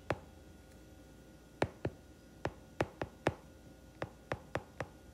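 A stylus ticking against a tablet screen while words are handwritten: about ten short, sharp clicks at an uneven pace, mostly in the second half.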